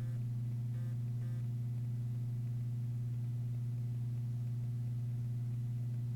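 A steady low hum, unchanging throughout, with a few faint short chirps about a second in.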